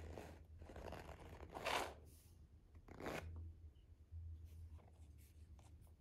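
Red plastic paste-texturing combs being handled: a few short scrapes and rustles, the loudest about two seconds in and another about a second later, then a few faint light clicks.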